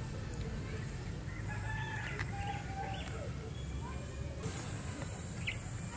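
Chickens calling faintly, with short clucks and crowing sounds. About four and a half seconds in, a high, steady insect buzz comes in suddenly and is louder.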